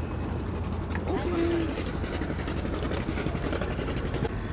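Outboard motor of a small boat running steadily under way, with a steady rushing noise over its low rumble.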